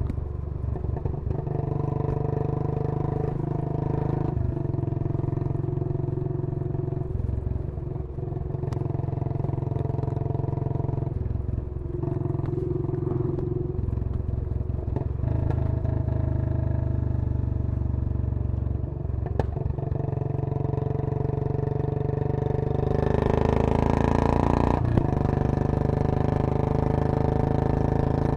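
Royal Enfield Bullet 500's single-cylinder four-stroke engine running, its note shifting in pitch several times, then growing louder and higher for a few seconds about two-thirds of the way through as it is revved.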